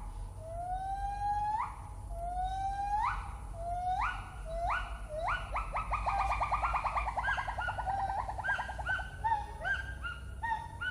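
Gibbon song: a series of long rising whoops about every second and a half. About five seconds in they speed up into a fast run of short notes that slowly falls, then break into shorter separate hoots.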